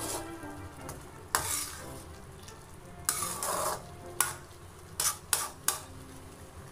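Metal spatula scraping and knocking against a metal pan while stirring a cauliflower and egg mixture, about six strokes with one longer scrape in the middle and three quick ones near the end. A steady faint sizzle of the frying food runs underneath.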